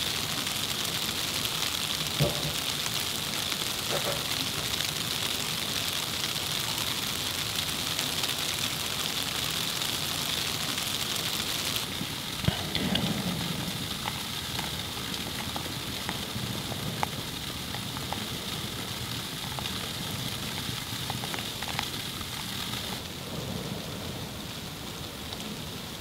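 Steady hiss and patter of falling wet snow on the surfaces of a snowy yard, with a few sharp taps.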